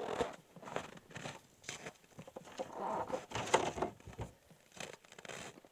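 Rustling of cold-weather clothing and gear with light irregular knocks as survey marker flags are pulled from a plastic sled.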